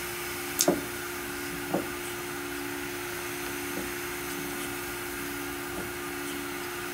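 1997 Studer S40 CNC cylindrical grinder running with a steady hum and two level tones, with a sharp click and knock just over half a second in and another knock near two seconds as its parts are handled.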